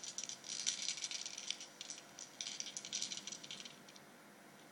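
Handful of small gemstones shaken in cupped hands: a dense clicking rattle that fades out about four seconds in.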